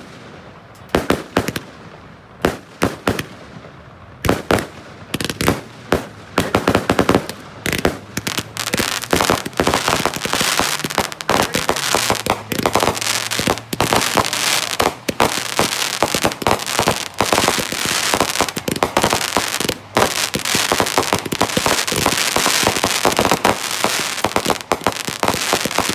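Aerial fireworks going off: scattered sharp bangs for the first few seconds, then a dense, rapid barrage of bangs that carries on to the end.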